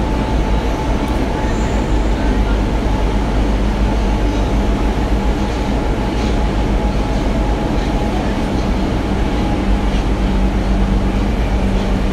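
Running noise inside a Tokyo Metro Marunouchi Line 02 series subway car in motion: a steady loud rumble of wheels and running gear with a constant high hum and a low drone.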